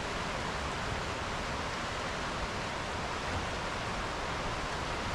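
Steady rushing of flowing river water, an even hiss without breaks.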